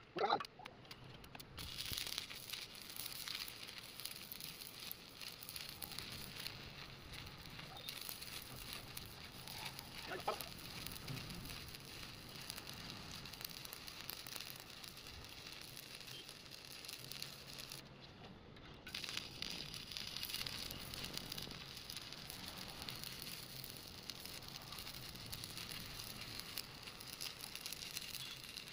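Electric welding arc crackling steadily. It breaks off about eighteen seconds in and strikes up again a second later.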